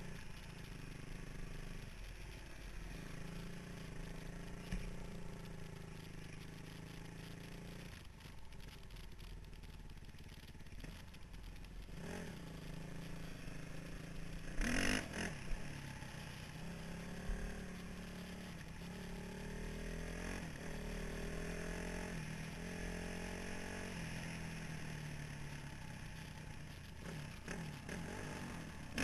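A 2003 Honda CRF450R's single-cylinder four-stroke engine running on a trail ride, its pitch rising and falling with the throttle, over the rattle of the bike on rough ground. About halfway through there is a brief loud burst as a second dirt bike revs close alongside.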